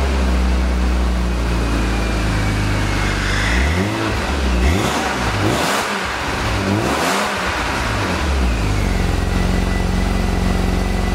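BMW Z3 engine running through its original, stock exhaust: it idles steadily, is revved up twice in the middle with the pitch rising and falling each time, then settles back to idle.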